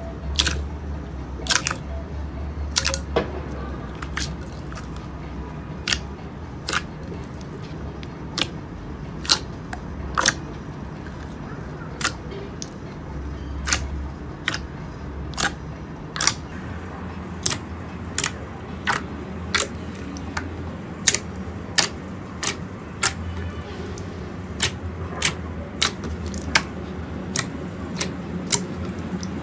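Slime being pressed and worked by hand, giving sharp popping clicks as trapped air bursts, one or two a second at an uneven pace, over a low steady hum.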